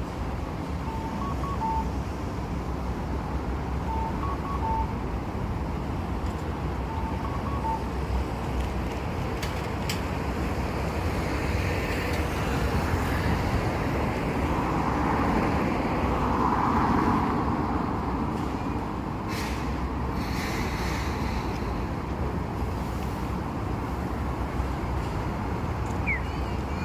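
Steady street traffic noise, with a vehicle passing that swells and fades, loudest about two-thirds of the way through. A short two-note electronic tone, high then low, repeats three times in the first eight seconds.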